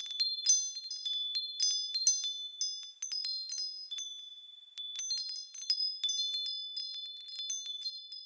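Small, high-pitched wind chimes tinkling irregularly, many light strikes ringing on and overlapping, with a brief lull about four seconds in.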